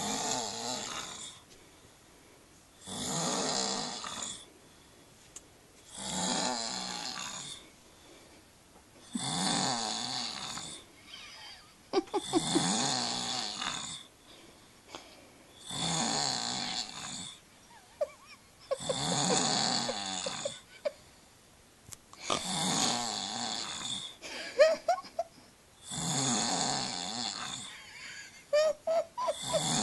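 A man snoring heavily in a slow, regular rhythm, about ten loud rasping snores, roughly one every three seconds, with quiet gaps between. A few of the later snores break into short, sharp catches.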